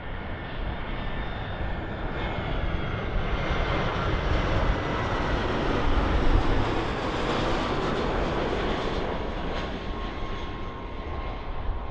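Airliner engines running loud as the plane passes, with a steady high whine over the roar. The sound swells to a peak about halfway and then eases off.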